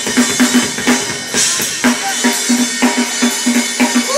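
Live funk band playing, with the drum kit's groove up front: a steady beat of bass drum and snare hits over cymbals.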